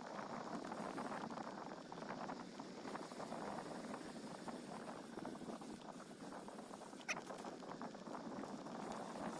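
Footsteps crunching on a dirt trail, a steady rustling crackle, with one sharp click about seven seconds in.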